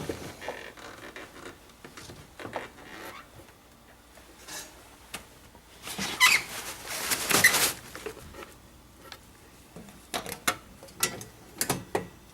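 Handling noises of a person at work: scattered clicks and knocks, with a louder scraping, rustling stretch about six seconds in lasting under two seconds, and a quick cluster of clicks near the end.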